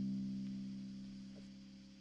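Music: the last chord of a rap song's backing track, a low held chord fading steadily away, then cutting off suddenly.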